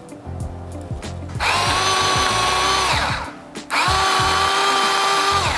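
Electric mini food chopper mincing celery, its small motor whining in two pulses of about a second and a half each, the pitch dropping as the blade spins down after each pulse.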